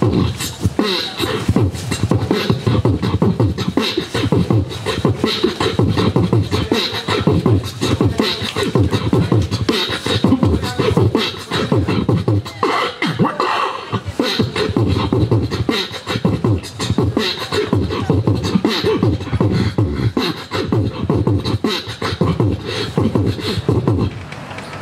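Human beatboxing into a handheld microphone: a dense, rapid, continuous beat of mouth-made drum sounds with a heavy low end.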